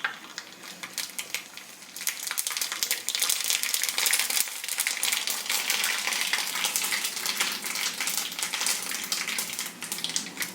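Mustard seeds spluttering and popping in hot coconut oil in a kadai as tempering begins. It is a dense crackle of small pops that grows louder about two seconds in.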